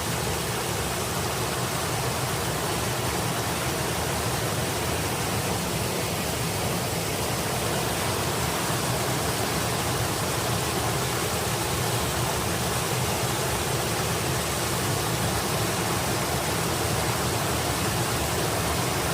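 A small mountain stream of water running and splashing steadily over rocks in a continuous rush.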